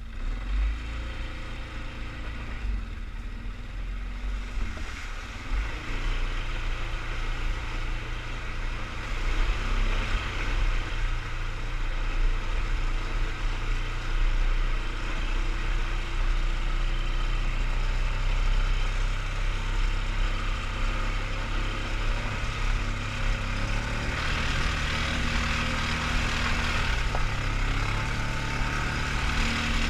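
A 2003 Polaris Sportsman 500 HO 6x6 ATV's single-cylinder engine running under way. It builds over the first several seconds, then holds steady, and its note steps up near the end.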